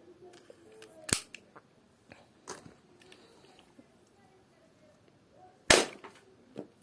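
Plastic toy gun that fires small plastic balls, being worked and shot: a sharp click about a second in, a few lighter clicks, then a loud sharp snap near the end.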